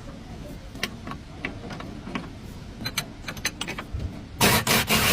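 Mechanical tool work on a car's stabilizer link: scattered sharp metal clicks over a low background rumble, then a loud rasping burst of a power or air tool about four and a half seconds in.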